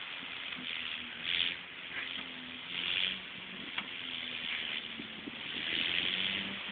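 Nissan Sentra Spec V's four-cylinder engine running with an exhaust leak: a steady hiss over a low hum that shifts slightly in pitch, with a few faint clicks.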